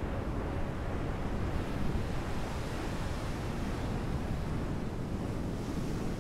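Steady rushing of ocean surf and wind.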